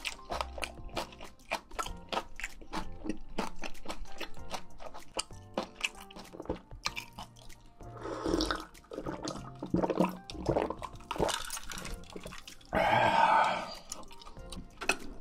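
Close-miked eating of black bean noodles: many small wet chewing clicks, with two longer, louder wet slurping sounds about eight and thirteen seconds in, over soft background music.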